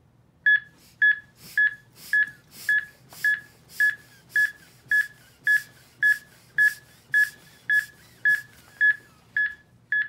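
HeartSine AED trainer's CPR metronome beeping steadily, a short high beep about twice a second (roughly 110 a minute) to pace chest compressions. A soft hiss comes with each compression on the CPR manikin and stops shortly before the end while the beeps go on.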